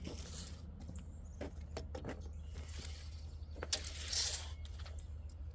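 Light clicks and scraping from a tape measure being pulled out and handled along a sawn board, with a longer hissing scrape about four seconds in, over a steady low hum.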